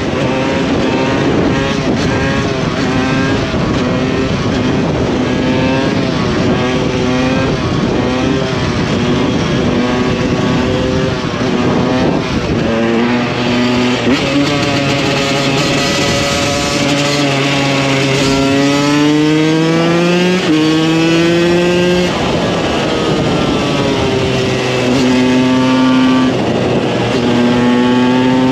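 2015 KTM 125 EXC supermoto's single-cylinder two-stroke engine under riding load, its pitch holding, climbing hard and stepping at gear changes, then falling back as the throttle is eased.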